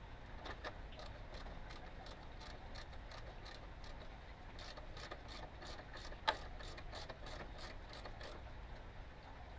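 Hand tools clicking and ticking against metal, a string of light irregular clicks with one louder knock a little past six seconds in.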